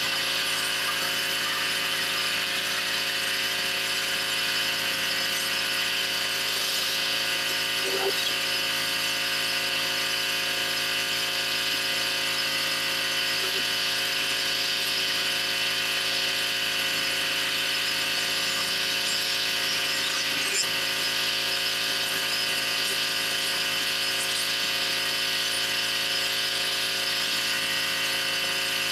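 Pressure washer running steadily, feeding a rotary surface cleaner on paver stones: a constant motor drone with a hiss of spraying water.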